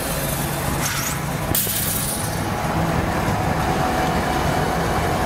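CN diesel-electric locomotives rolling past at close range, their diesel engines running with a steady low drone. Two sharp knocks come about a second and a second and a half in, and a steady thin whine comes in about halfway.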